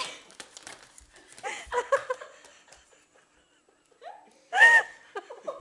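People laughing and giggling, with a short, loud, high-pitched exclamation about three-quarters of the way through.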